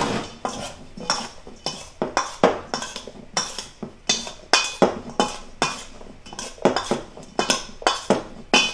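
Stainless steel mixing bowl clinking and ringing as blanched broccoli florets are tossed in dressing, a run of sharp metallic knocks about two a second.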